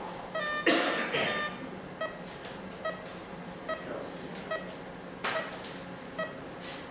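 Operating-room patient monitor beeping with each heartbeat, a short pitched beep about every 0.8 seconds, roughly 75 a minute. Two brief louder rustles or clatters break in, about a second in and about five seconds in.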